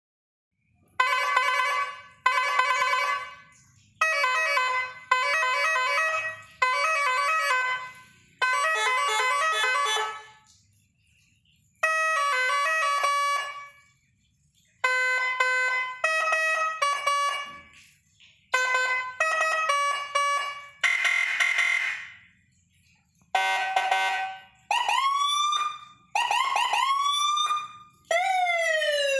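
Indonesian 'telolet' multi-tone horn playing short melodic toots: a series of one- to two-second bursts of several notes, with short pauses between them. In the last few seconds it switches to a siren sweeping up and then down in pitch.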